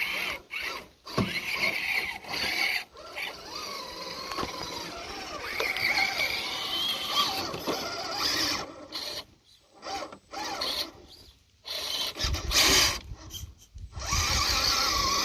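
Small electric motors and geartrains of RC rock crawlers whining in stop-start bursts as the throttle is worked on and off, the pitch rising and falling. A louder scraping comes in near the end, as tyres and chassis grind over rock.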